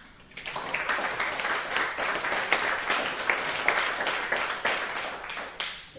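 A small audience applauding at the close of a talk. The hand claps start about half a second in and die away near the end.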